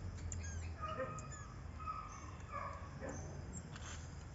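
Small monkeys (soim) calling, with many short high chirps and whistles overlapping in quick succession.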